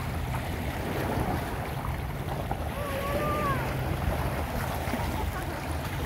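Small waves lapping in shallow sea water, with wind rumbling on the microphone. A faint, brief whine slides in pitch about three seconds in.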